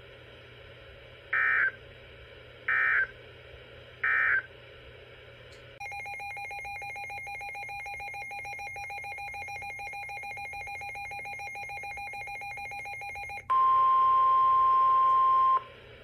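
Emergency Alert System data bursts on NOAA Weather Radio: three short, equal bursts of screechy digital data about a second and a half apart, the end-of-message code closing the tornado warning. A quieter steady buzzing signal with a faint even pulse follows for about eight seconds. Near the end comes a loud single steady tone of about two seconds, the NOAA Weather Radio warning alarm tone that leads into the next warning.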